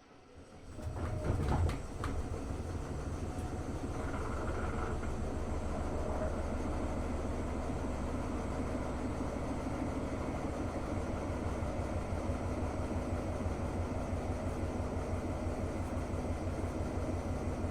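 Hotpoint-Ariston AQ8L 09 U washing machine with a brushless inverter motor, its drum starting to turn. It starts from near quiet, surges louder about a second in, then settles into a steady rumble with a fast, even pulse.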